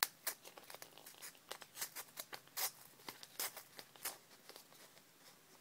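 Faint, irregular small clicks and crackles of a can of Stoker's mint dipping tobacco being handled and cracked open, its lid seal tearing as it is broken.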